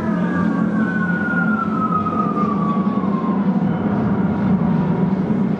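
Air-raid siren winding down, its pitch falling slowly and fading out after about three seconds, over a steady low drone.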